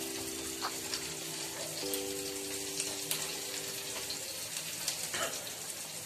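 Fish curry (kulambu) boiling in an aluminium pot: a steady bubbling hiss with scattered small pops and clicks, and a ladle stirring it about four seconds in. Under it a steady droning tone shifts pitch about two seconds in and stops about four seconds in.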